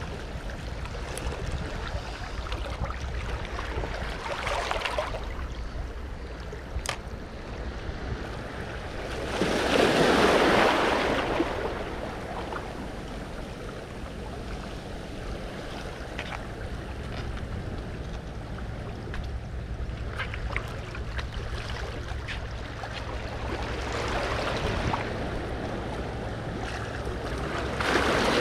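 Sea waves washing against a rocky shore: a steady hiss of moving water with surges that swell and ebb every several seconds, the loudest about ten seconds in. A few faint sharp clicks are heard along with it.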